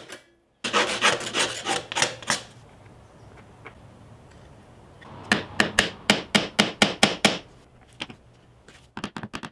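Wooden dowel ends being sanded by hand with a scrap of sandpaper: quick back-and-forth rubbing strokes, about five a second, in short bursts with pauses between.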